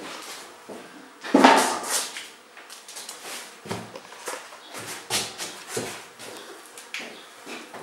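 Scattered knocks and clatter of objects being handled, the loudest about a second and a half in.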